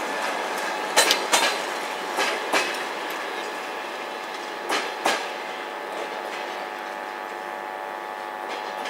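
Passenger coaches rolling past slowly as the train pulls out, their wheels clacking over a rail joint in three quick double knocks, one for each bogie's two axles, over a steady rolling rumble that thins out after about five seconds.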